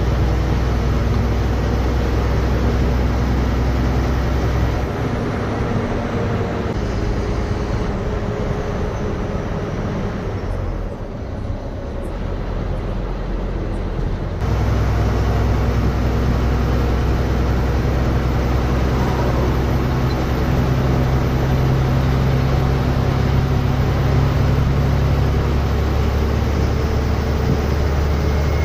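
Ashok Leyland diesel bus engine running at speed with road and tyre noise, heard from inside the bus. The engine note eases off for several seconds midway, then picks up again.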